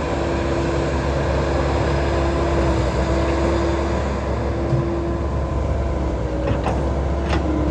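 Kubota DC70 rice combine harvester running steadily: a continuous mechanical drone with a steady hum. Two brief clicks come near the end.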